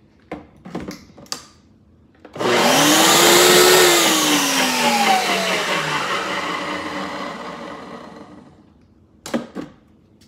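Countertop blender blending egg yolks and olive oil for mayo: the motor starts suddenly and runs briefly at full speed, then winds down in a long falling whine as the power is cut. Short knocks of the plastic jar on the base come before the run and again near the end.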